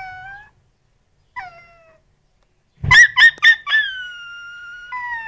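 Cocker spaniel puppy whining: a short high whine, a second fainter one, then about four sharp yelps in quick succession, the loudest part, followed by a long drawn-out whine that sags slightly in pitch, and another beginning near the end.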